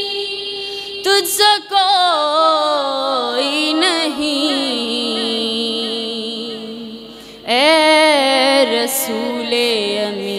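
A woman's solo voice singing a naat, drawing out long, wavering notes with no clear words, over a steady held drone. A new, louder phrase starts about a second in and again about three quarters of the way through.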